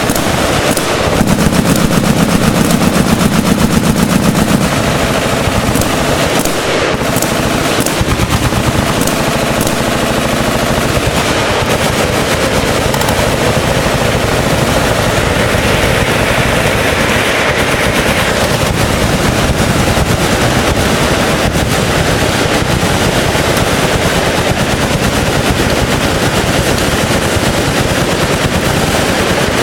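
Machine guns firing full-auto without a break, shots packed densely together, louder for a few seconds near the start.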